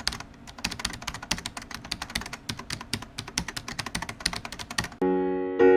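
Fast, uneven clatter of typing on a computer keyboard that stops about five seconds in, when sustained electric piano chords begin.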